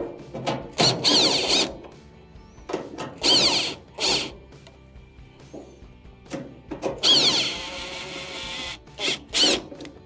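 Makita cordless driver backing out the screws that hold a Maytag dryer's console: about six short runs of the motor, each a whine that rises and falls in pitch, the longest nearly two seconds, with clicks from the bit and screws in between.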